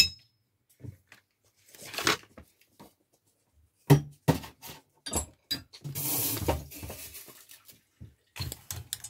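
Small clicks, taps and knocks from handling a key fob and small tools on a bench during a switch repair. About six seconds in there is a longer scratchy rustle.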